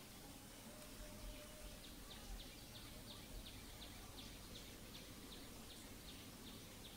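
Faint outdoor ambience with a run of short, high, falling chirps, about three a second, starting about two seconds in: an animal calling.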